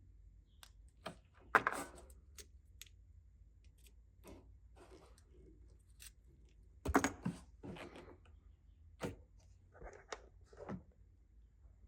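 Scattered small clicks and rustles of a car's tail light wiring connector and its crimp terminals being handled, with two louder clatters about 1.5 s and 7 s in.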